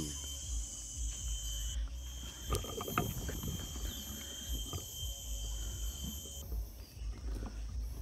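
Forest ambience: a steady high-pitched insect drone that stops near the end, over a low rumble on the microphone and a few soft clicks.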